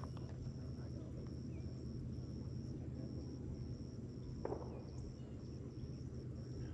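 Outdoor field ambience: an insect chirps in a high, even pulse about twice a second over a steady low rumble. A single short sound stands out about four and a half seconds in.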